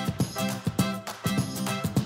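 Background music with a steady beat and pitched instrument notes.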